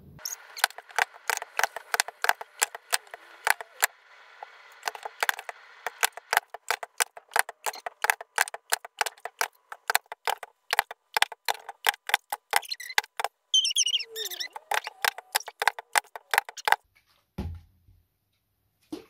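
Rapid, even clock-like ticking, about four ticks a second, that stops near the end, followed by two dull thumps.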